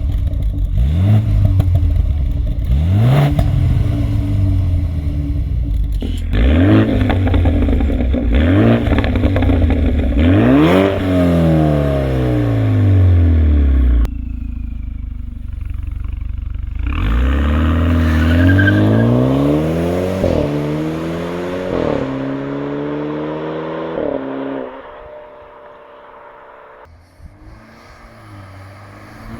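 BMW 328i's 2.0-litre turbocharged four-cylinder engine (N20) through a custom active exhaust, revved repeatedly in short blips and longer pulls that rise and fall in pitch. Near the end it settles to a quieter, steady idle.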